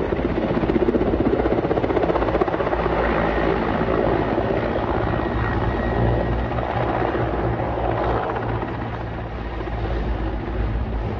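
Helicopter running steadily, its rotor blades chopping rapidly over the engine noise.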